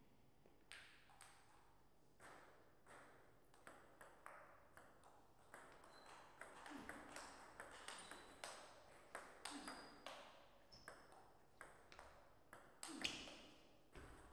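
Table tennis rally: the celluloid ball clicks again and again off the rubber paddles and the tabletop at an uneven pace, with a louder, sharper hit near the end.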